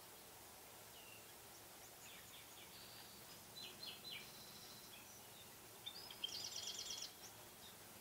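Faint high calls from a feeding flock of long-billed dowitchers: a few short notes about three seconds in, then a quick run of repeated sharp notes about six seconds in, over quiet marsh background.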